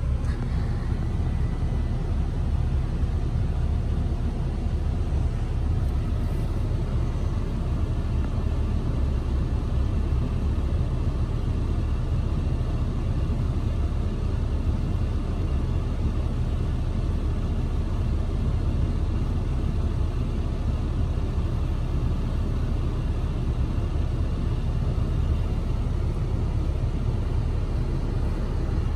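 Ram pickup truck idling, a steady low rumble heard from inside its cab.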